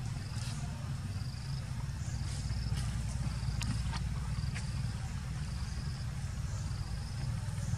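Outdoor forest ambience: short high chirps repeat about once or twice a second over a steady low rumble, with a few faint clicks a little before the middle.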